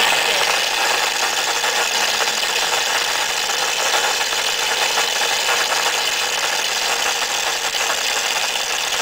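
Electric stand mixer comes on at once and runs steadily, its twin beaters turning through cake batter in a glass bowl as boxed cake mix is beaten into eggs, water and oil.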